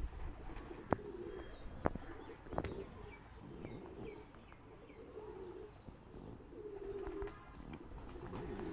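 A flock of domestic pigeons cooing in repeated low calls, with a few sharp clicks in the first few seconds and short high chirps in the middle.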